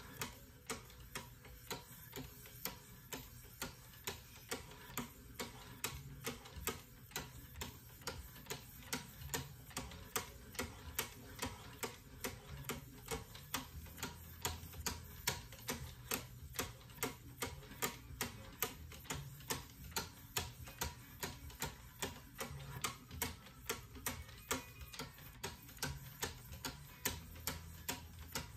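Hones of a Wicked Edge guided sharpening system stroking both sides of a clamped steel folding-knife blade in alternating passes, each pass a short sharp tick, about two a second in a steady rhythm.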